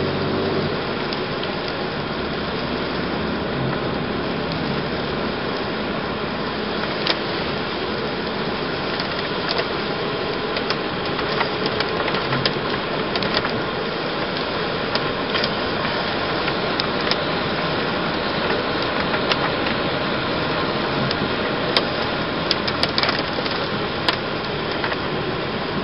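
Steady road and engine noise heard inside a moving car, with scattered light ticks and taps that grow more frequent in the second half.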